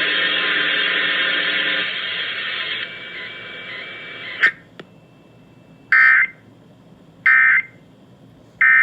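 Emergency Alert System end-of-message signal over FM radio: three short bursts of screechy digital data, about 1.3 s apart, marking the close of the alert. Before them a loud hiss fades and cuts off with a click about four and a half seconds in.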